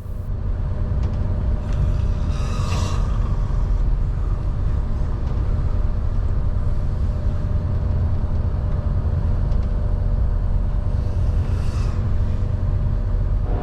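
Steady low drone of a Nordhavn 50 trawler's diesel engine heard aboard while under way, with a constant hum. A brief swish about two and a half seconds in and again near the end.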